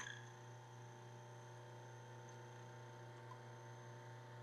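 Eureka Oro Mignon Single Dose coffee grinder switched on and running empty, its motor spinning the burrs with no beans going through. It makes a steady hum.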